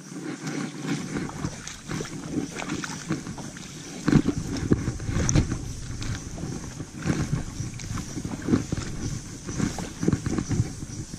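Footsteps splashing and crunching through a shallow, stony stream, an irregular run of steps in the water, with a low rumble on the microphone joining about four seconds in.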